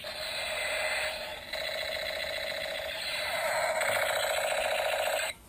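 Battery-powered musical toy pistol playing its electronic sound effect through its small speaker: a rapid pulsing sound that changes pattern about a second in and again around three seconds, then cuts off suddenly near the end.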